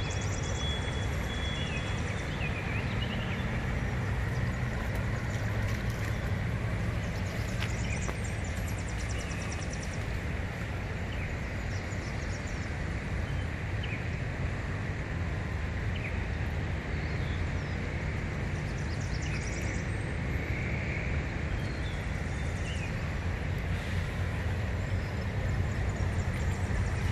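Steady outdoor ambience beside floodwater: a continuous low rumble, with short high bird chirps here and there.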